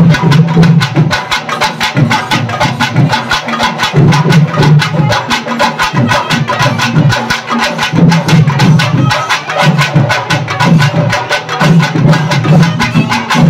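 Drums beating a fast, steady rhythm in traditional festival music, several strokes a second.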